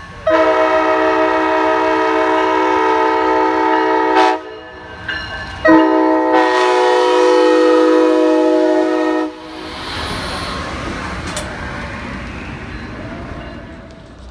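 Amtrak Siemens Charger (SC-44) locomotive's air horn blowing two long blasts, a short pause between them. The train's bilevel passenger cars then rumble past on the rails, fading toward the end.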